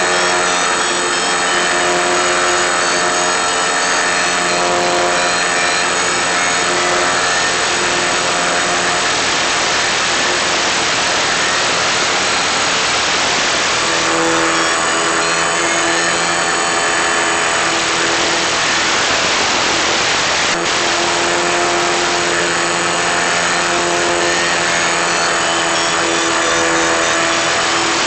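Electric motor and propeller of an FPV model plane running, a steady buzzing hum under heavy hiss; the hum weakens for a few seconds and comes back stronger about halfway through.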